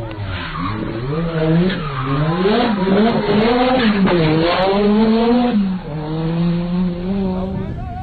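Rally car engine revving hard, its note climbing and dropping again and again through gear changes and throttle blips, then holding a steadier note near the end.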